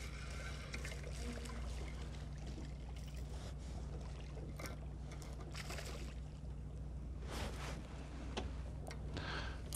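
Water sloshing and splashing against a small boat's hull in short, irregular splashes, over a steady low hum.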